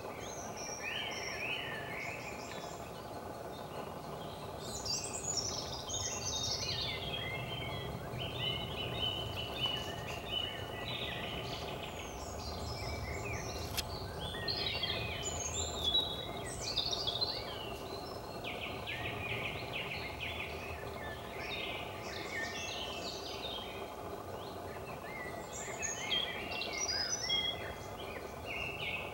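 Several songbirds singing and calling over one another, with chirps, warbles and fast trills, over a steady low background hum.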